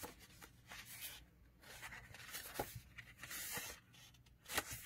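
Soft rustling of paper as the pages of a small printed booklet are turned and handled, a few quiet swishes and light ticks.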